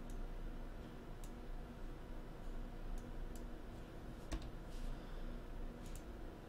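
Computer mouse clicking a few times at irregular intervals, one click louder about four seconds in, over a faint low hum.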